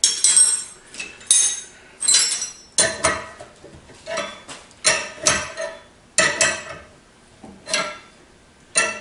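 Metal-on-metal clinks and rattles from a bearing splitter and puller being worked with a ratchet wrench, about ten sharp ringing bursts roughly a second apart, as it strains to pull a stuck ball bearing off a shaft.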